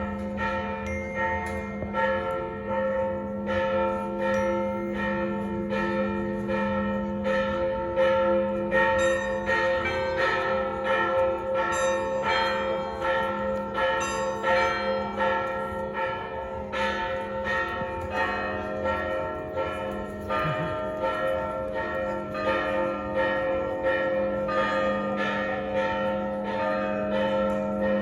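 Several church bells pealing, struck in quick succession about twice a second, each stroke ringing on and overlapping the next. The mix of bell pitches changes about two-thirds of the way through.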